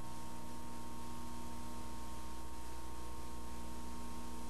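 Steady electrical hum and hiss from playback of a blank stretch of VHS tape: a low buzz with a faint high steady tone over even tape hiss.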